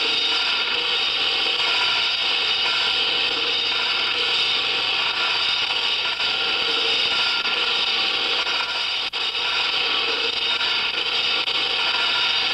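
Harsh noise-music soundtrack: a dense, unbroken wall of machine-like noise, bright and harsh in tone, with a brief drop about nine seconds in.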